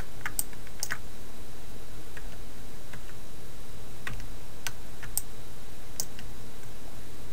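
Computer keyboard and mouse clicking: several sharp single clicks at irregular intervals, over a steady low electrical hum and hiss.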